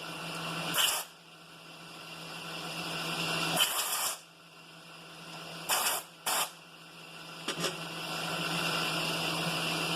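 Milling machine running with a boring head and boring bar taking a slow cut: a steady motor hum and cutting hiss that swells and fades, with several brief sharp noises about one, four, six and seven and a half seconds in.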